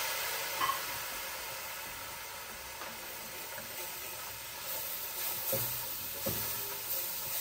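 Cooking wine sizzling and bubbling in a hot butter-and-flour roux in a stainless pan, the hiss easing over the first couple of seconds. A silicone utensil stirs and scrapes through it, with a few short knocks against the pan near the end.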